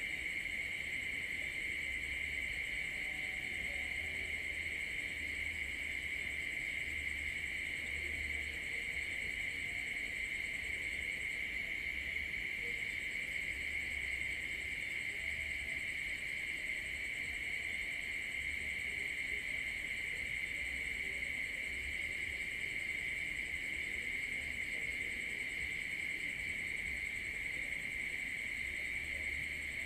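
Night insects, crickets among them, calling in a steady, unbroken chorus of high trilling.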